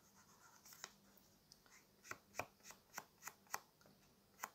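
Handled foam ink-blending tool dabbed along the edges of a piece of card and onto an ink pad: a run of faint, short taps, about three a second from about two seconds in.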